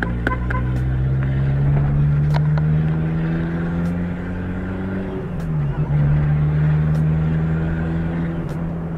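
Turbocharged Fiat Palio 1.0 Fire four-cylinder engine heard from inside the cabin, pulling with a slowly rising note for about five seconds. The note dips briefly, then runs on steadily.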